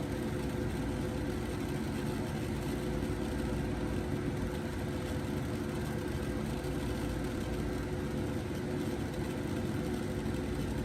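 Steady low mechanical hum with a few held tones, like a fan or air-conditioning unit running, unchanging throughout.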